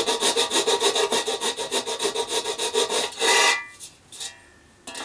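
A big new hand file rasping in quick, even strokes on the cut edge of an opening in a metal R2-D2 dome, with a metallic ring under the strokes, filing off the small notches left by the laser-cut tabs. The filing stops about three and a half seconds in.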